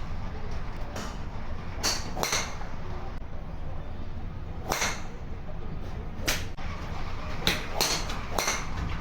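Golf driver swings: about seven short, sharp swishes or strikes at uneven gaps, some in close pairs, over a steady low rumble.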